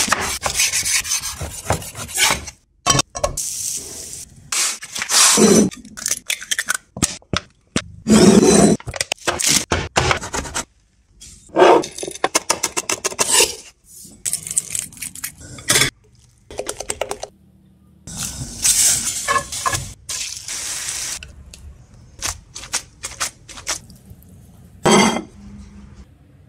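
A quick run of kitchen cooking sounds cut one after another: scraping and rubbing of utensils on a board and a pan, clinks of cookware, and a chef's knife blade crushing peppercorns on a wooden board.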